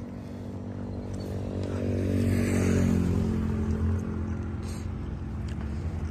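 A vehicle engine running steadily at a low, even pitch. It swells in level about two to three seconds in, then eases off.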